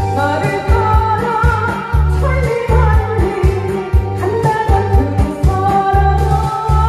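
A woman singing a Korean trot song through a headset microphone and PA, over a loud backing track with a steady pulsing bass beat.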